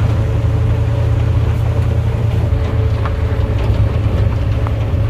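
Safari tour truck's engine running steadily as the vehicle drives, a low rumble with a steady hum above it.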